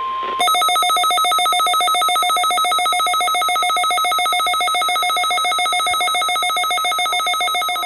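A steady weather radio warning tone near 1 kHz cuts off just under half a second in. It gives way to a loud, rapid electronic trill, a weather radio alert alarm made of several pulsing beep tones, which runs for about seven and a half seconds before stopping.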